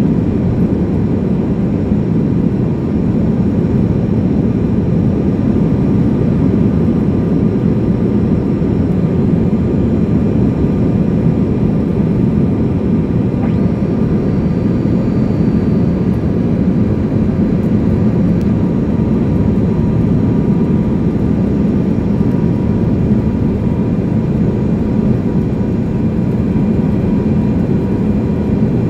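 Steady cabin noise of a small jet airliner on approach, heard from a seat over the wing: the engines and rushing air make a constant low drone, with a faint steady whine above it.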